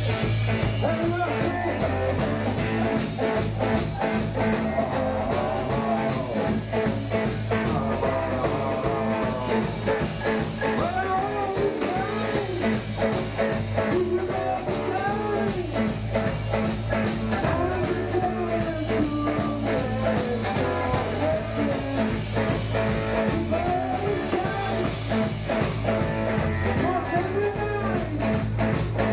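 Live blues-rock band playing: electric guitars, bass and drums, with a pitched lead line that rises and falls over the band.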